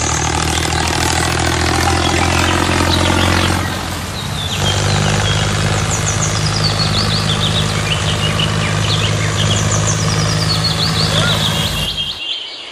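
A tractor engine runs steadily at a low, even idle. The sound dips and changes about four seconds in, then cuts off abruptly just before the end.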